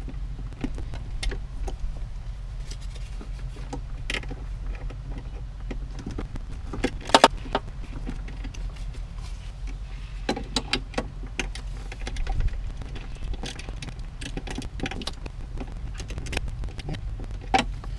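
Small metallic clicks and clinks of a 10 mm wrench working the terminal nuts on an RV boost solenoid, in irregular taps with a louder double clank about seven seconds in.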